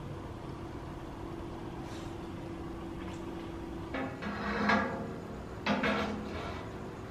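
Glass bottles set down one after another on a metal cart tray: three knocks with a short ringing clink, starting about four seconds in, the second the loudest.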